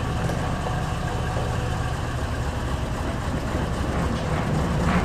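Engine of a 1970s Ford F750 grain truck running steadily at low revs, a deep even rumble that grows slightly louder near the end.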